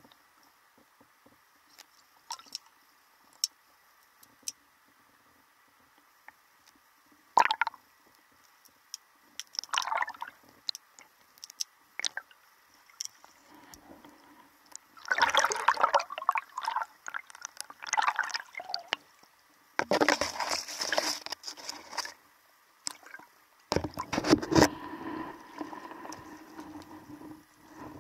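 Underwater audio from a camera submerged in a river: faint scattered clicks and ticks at first, then from about halfway through, repeated louder bursts of gurgling, sloshing water.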